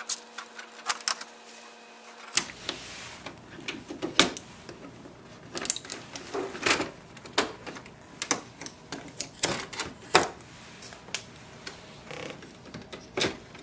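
Irregular plastic clicks and knocks from a new HP LaserJet M110we laser printer's casing as packing tape is peeled off and its front paper tray and top lid are opened.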